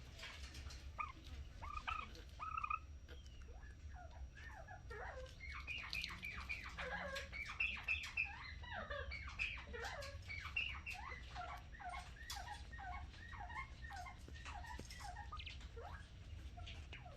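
Quails and northern bobwhites chirping in a dense run of short, quick calls, thickest from about four seconds in, with a few sharp clicks and a steady low hum underneath.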